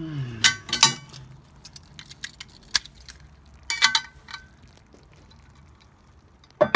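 Cast iron lid of a Lodge Dutch oven clinking against the pot as it is handled, with a few short ringing metal clinks and then a louder ringing clank near the end as the lid is set down on it.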